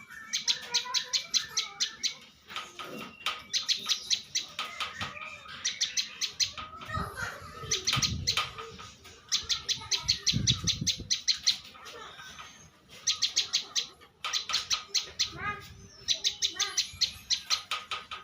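A prenjak lumut singing: repeated phrases of rapid, high-pitched chirping notes, each phrase about a second long with short pauses between, nine or so in all. A few low thuds come in the middle.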